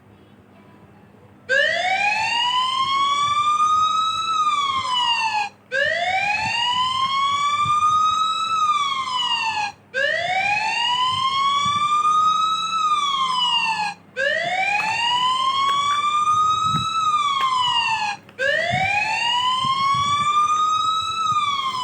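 Electronic emergency-vehicle siren sounding a wail: each cycle climbs slowly in pitch for about three seconds, then drops quickly and breaks off briefly before the next, repeating about every four seconds. It starts about a second and a half in, after a faint lead-in.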